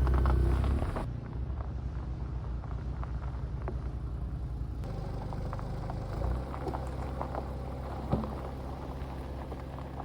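Low rumble of a car driving on the road, with a few light clicks and knocks.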